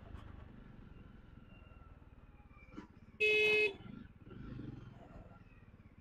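A vehicle horn gives one short, loud blast of about half a second, about three seconds in. Under it, a motorcycle runs faintly at low speed.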